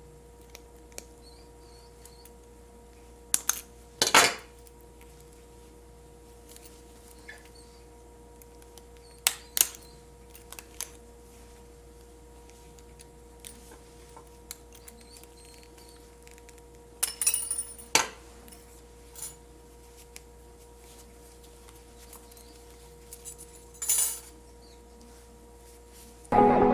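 Small metal buckle hardware being worked by hand: scattered short clicks and clinks a few seconds apart, over a faint steady hum.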